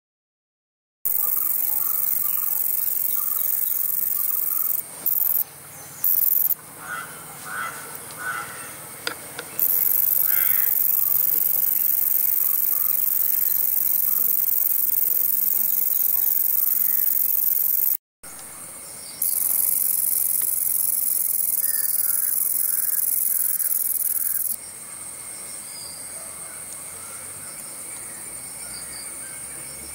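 Black-kneed meadow katydid (Conocephalus melaenus) singing: a high-pitched continuous buzz held for several seconds at a time, with short breaks and a fainter stretch near the end.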